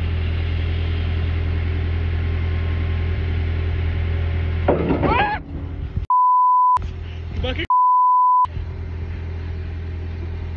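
Digger's diesel engine running with a steady low drone. About halfway a voice exclaims, and two censor bleeps, steady single tones under a second each, cover the next words.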